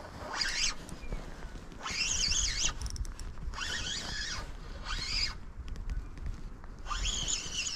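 Spinning reel worked in spurts while a hooked pike is played: a whirring, rattling reel sound in about five bursts of up to a second and a half, with a low rumble of wind on the microphone underneath.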